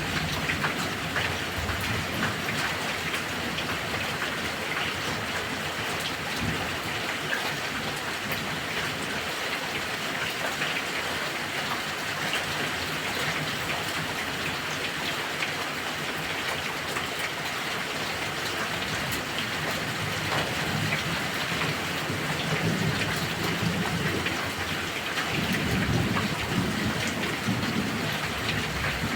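Heavy rain falling steadily, with a low rumble of thunder swelling near the end.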